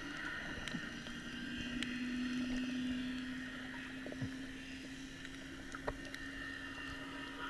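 Underwater sound of a boat engine: a steady low hum that swells over the first few seconds and then eases off, over a water hiss with scattered faint clicks.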